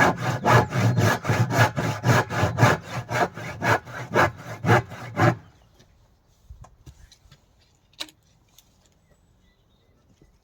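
Handsaw cutting through timber in quick back-and-forth strokes, about three a second, stopping about five seconds in. A few faint clicks follow.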